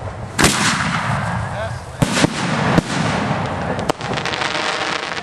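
Aerial fireworks bursting: a loud bang about half a second in, then a cluster of bangs around two to three seconds, with a continuous crackle between them.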